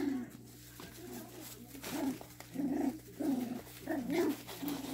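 Cocker spaniel puppies vocalising as they play-fight, a string of about five short, whiny calls, some sliding up and down in pitch, mostly in the second half.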